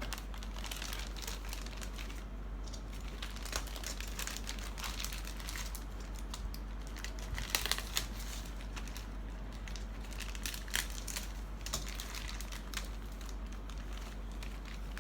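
Crinkling and rustling of the plastic bags that hold a plastic model kit's parts trees as they are handled, irregular and crackly, with a louder patch about halfway through, over a steady low hum.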